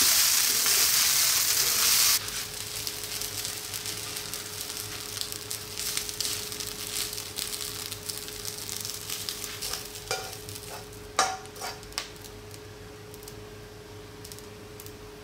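Fried rice sizzling in a hot non-stick pan as it is stirred with a spatula; the sizzle cuts off suddenly about two seconds in. Then quieter scraping and rustling as the rice is pushed out of the pan onto a serving dish with the spatula, with a few sharp knocks of the spatula against the pan about ten to twelve seconds in.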